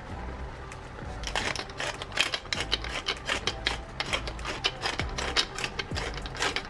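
Handheld glass spice grinder being twisted, a rapid, irregular crunching and clicking that starts about a second in, over soft background music.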